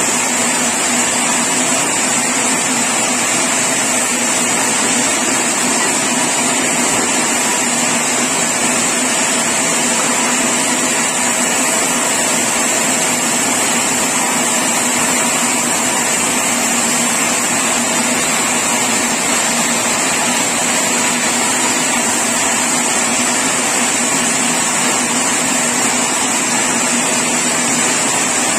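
Sawmill machinery running steadily, a constant loud drone with a steady high whine that does not change.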